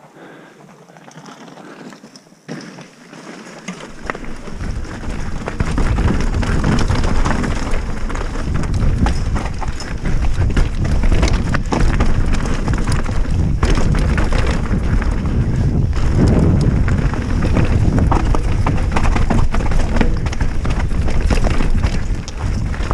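Mountain bike riding fast down a dirt trail: tyres rolling over loose dirt and stones, with many sharp rattles and knocks from the bike, and wind buffeting the action camera's microphone. It starts fairly quiet and becomes loud and dense about four seconds in.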